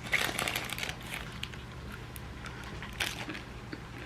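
Faint crinkling and rustling of a Nerds Rope candy's plastic wrapper, with scattered small clicks and a sharper click about three seconds in.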